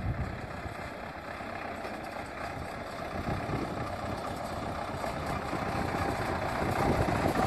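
Ford farm tractor engine running as the tractor drives up a dirt track, growing steadily louder as it approaches.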